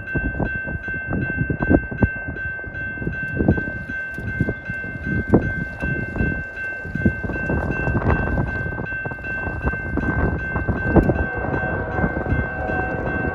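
CSX freight train rolling past at about 45 mph: uneven clatter and knocks of wheels on the rail over a rumble. A steady, high ringing tone sounds over it and stops near the end.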